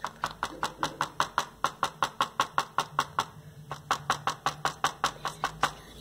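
Rapid, even taps of a paint-loaded tip dabbed onto a painting board, about five a second, stippling white blossom dots. The tapping pauses briefly just past halfway and stops shortly before the end.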